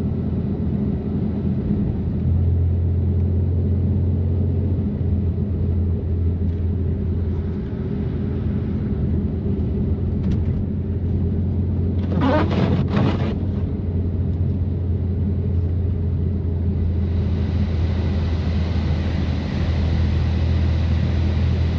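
BMW M3 Competition's twin-turbo inline-six engine and catless, open-valved exhaust droning steadily while cruising on snowy roads. A brief crackly burst sounds about twelve seconds in, and a rushing hiss comes in over the drone near the end.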